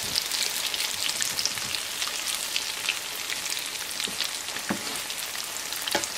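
Potato pancakes frying in shallow oil in a nonstick pan: a steady sizzle full of quick crackles and pops. A wooden spatula works in the pan, giving a couple of louder soft strokes about two-thirds of the way through and near the end.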